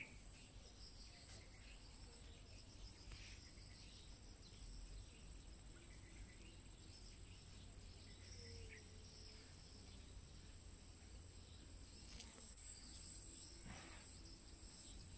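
Near silence: faint background tone with a thin steady high whine and a few faint, brief rustles.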